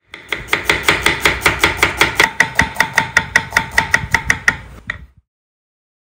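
Kitchen knife quickly slicing red onions on a wooden cutting board, an even run of about six cuts a second that stops about five seconds in.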